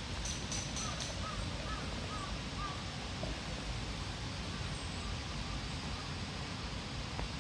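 Beer poured from an aluminium can into a stainless-steel-lined mug over a steady hiss, with a few quick clicks just as the pour starts. A bird calls a quick run of short notes over the first few seconds.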